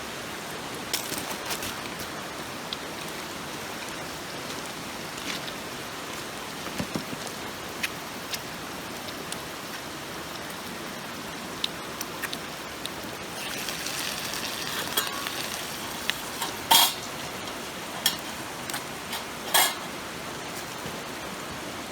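Steady rush of a mountain stream with scattered clinks and taps of cooking utensils against cookware, the two loudest sharp clacks near the end.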